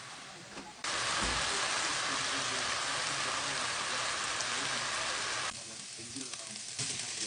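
Diced chicken sizzling in hot oil in a frying pan: an even, loud sizzle that starts abruptly about a second in, drops off suddenly a couple of seconds before the end, then comes back near the end.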